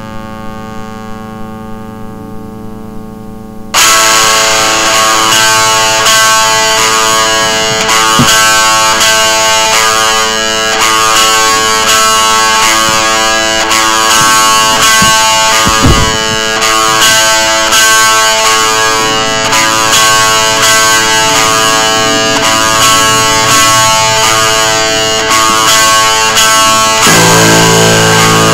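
Guitar-led music with a distorted, effects-laden tone. It starts quietly and becomes much louder and fuller suddenly, a little under four seconds in.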